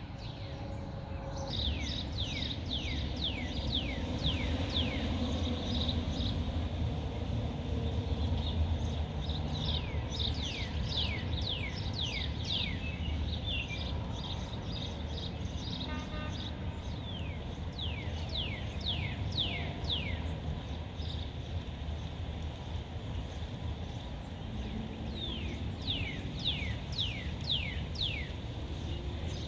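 A bird singing in bouts of quick down-slurred chirps, several a second, each bout lasting a few seconds with pauses between, over a steady low background rumble.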